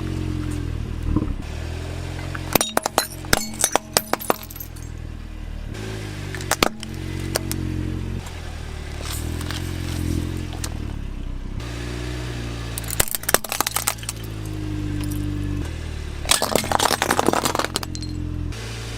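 Plastic toy cars and a toy excavator clattering and knocking together in several bursts of sharp clicks, over a steady low hum.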